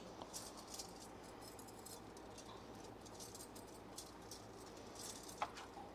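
Faint soft scraping and light clicks of a metal spoon scooping ripe avocado flesh out of its skin into a bowl, with one sharper click near the end.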